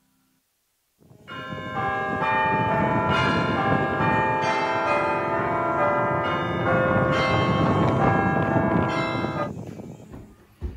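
Church bells pealing, several bells struck one after another so that their ringing tones overlap. They start about a second in and die away near the end.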